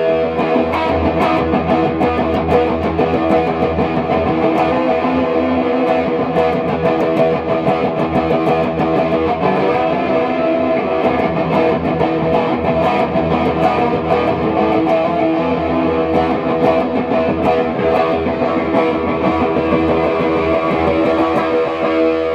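Les Paul-style solid-body electric guitar playing a continuous run of picked notes and sustained tones.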